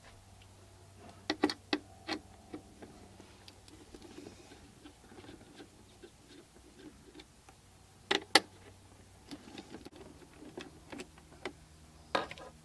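Computer parts being handled during a PC build: scattered sharp clicks and light knocks of small hard plastic and metal pieces, in a cluster about a second in, a louder pair about eight seconds in and another near the end, with small ticks between, over a faint low hum.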